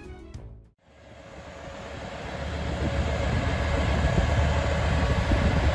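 Music ends just after the start, then a heavy truck's engine runs under load with a steady rumble that grows louder over the next few seconds.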